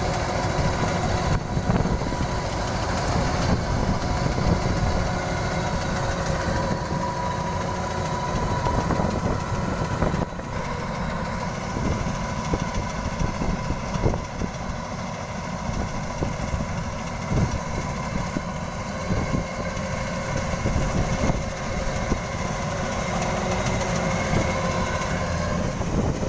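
Kubota DC-93 combine harvester's diesel engine running steadily, a low rumble with a thin steady whine over it.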